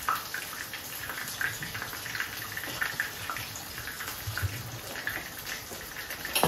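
Chicken pieces frying in oil in a pan: a steady sizzle with small crackles.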